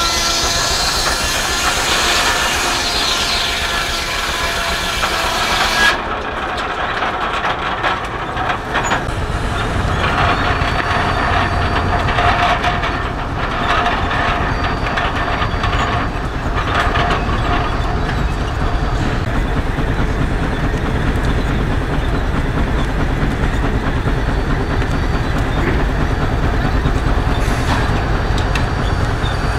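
Steam-engine-driven portable sawmill running, its saw cutting a log. The sound changes abruptly about six seconds in, to a steady low rumble with a held whine for several seconds.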